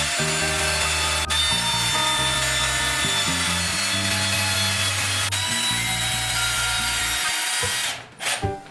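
Cordless drill running steadily as it bores through a wooden batten held against the wall, over background music with a stepping bass line. The drilling stops about eight seconds in, followed by a few light knocks.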